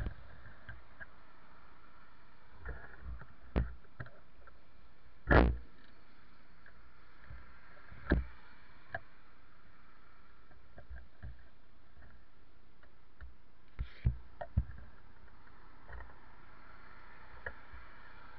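Steady hiss from a small action camera's microphone, with a dozen scattered, muffled thumps and knocks. The loudest comes about five seconds in, and a quick cluster of them follows about fourteen seconds in.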